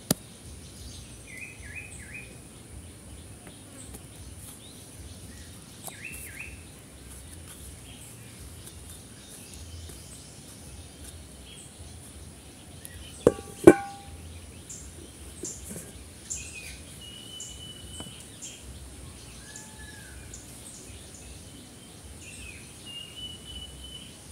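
Outdoor ambience of small birds chirping on and off over a steady high-pitched insect drone, with two sharp knocks close together about halfway through.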